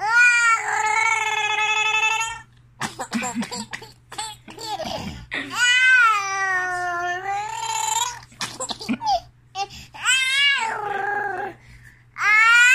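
A toddler's voice: long, high-pitched drawn-out calls, four of them, each lasting a couple of seconds, with short gaps of small mouth clicks and breaths between.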